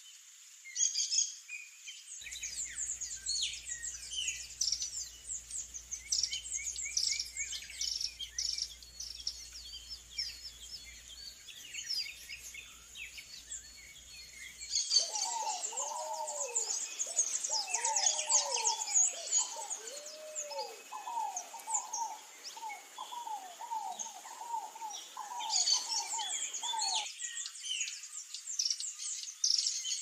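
Many small songbirds chirping and calling together in a dense, overlapping chorus of quick high notes. About halfway through, a lower, repeated whistled phrase of arching notes joins in, and it stops near the end.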